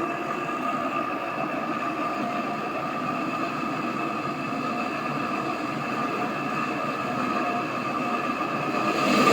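AEG Öko Lavamat 4100 washing machine on its spin cycle: a steady whine over a rough rumble from the spinning drum, the sign of worn drum bearings. Near the end it grows sharply louder and harsher.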